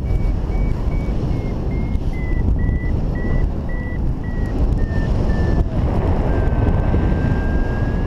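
Paragliding variometer beeping about two to three times a second at a high pitch that slowly drifts lower, turning into a longer, lower tone about six seconds in that slowly rises again, over loud wind rush on the microphone in flight.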